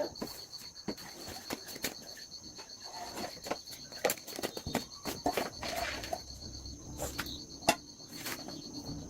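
Insects, crickets or similar, trilling steadily in a high, rapidly pulsing tone. Scattered sharp clicks and light rustles come close by, with one louder click about three-quarters of the way through.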